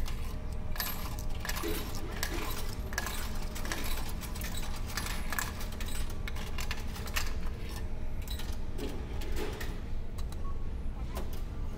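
Coins jingling and clinking in clusters as they are handled and fed into a meal-ticket vending machine, over the steady low hum of the ferry.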